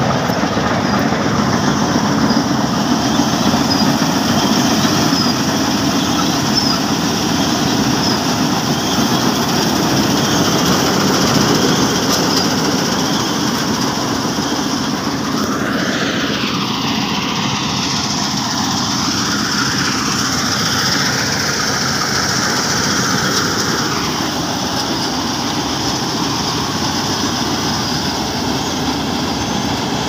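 New Hind 999 combine harvester running steadily while cutting and threshing rice paddy, a continuous loud engine and machinery drone. Its tone wavers up and down around the middle.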